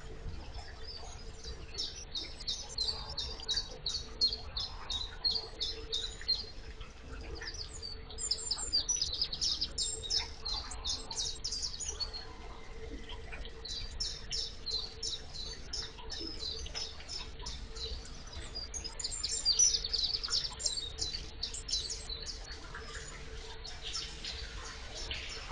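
Electric narrowboat's propeller churning water, a low steady rumble with a faint steady hum. Over it come runs of rapid, high-pitched chirping ticks, each run lasting a few seconds, with short gaps between runs.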